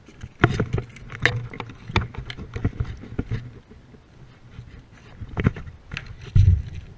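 Irregular knocks and taps on the wooden boards of a pier deck, with a heavy low bump a little before the end.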